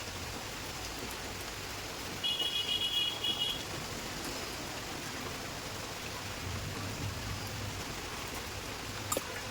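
Steady hiss of rain. About two seconds in comes a second and a half of high, rapid metallic rattling as starter-motor parts are handled, and there is a single sharp click near the end.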